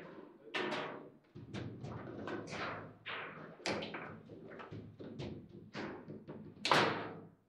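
Table football (foosball) in play: the ball and the rod-mounted players knocking and thudding against the table in quick, irregular hits with a short ring after each. The hardest, loudest strike comes near the end.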